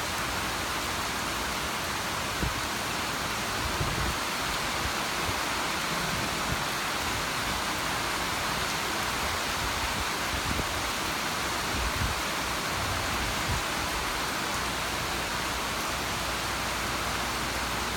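Steady rainfall, an even hiss with a few soft low thuds.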